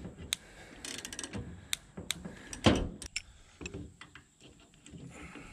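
Metal clicks and clanks as a steel C-frame U-joint press is handled and repositioned on a drive shaft yoke. The clicks are scattered, with one louder clank about two and a half seconds in.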